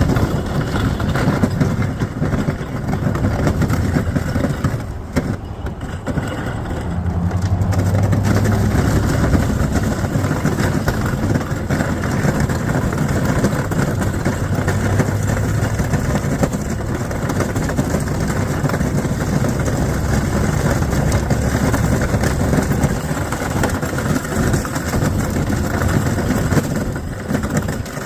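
Pickup truck engine running hard while a Snowdogg plow blade pushes and scrapes through snow, a steady loud noise with a brief drop about five seconds in. It sounds horrible, which the driver puts down to plowing probably way faster than recommended.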